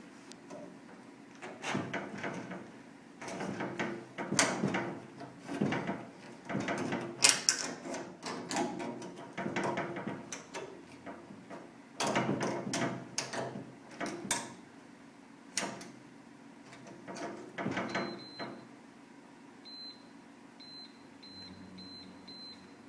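A thin metal strip scrapes and clicks against the steel door and jamb of a Sentry push-button safe as it is worked in toward the reset button. Near the end the keypad gives one beep, then five short beeps in quick succession as a new five-digit combination is punched in.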